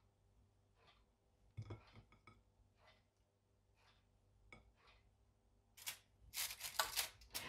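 Faint clicks and taps of fingers handling sliced bell pepper on a plate and a foil-lined metal baking tray, scattered at first, then coming thicker and louder as crackly ticks in the last second and a half.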